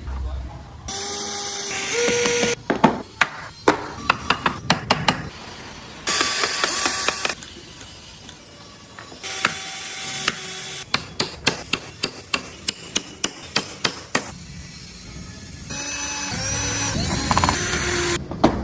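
A small power tool working wood, run in four short bursts, alternating with runs of quick sharp taps at about four a second.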